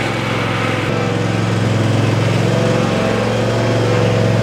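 Cub Cadet ZT1 50 zero-turn riding mower's engine running steadily as the mower is driven along.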